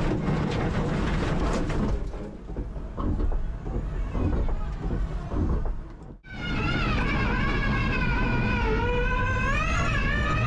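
Inside an electric RX1e rallycross car at speed: the electric drivetrain's whine sliding up and down in pitch with speed, over a low rumble. The sound drops out briefly about six seconds in, then returns as a clearer whine that wavers and climbs.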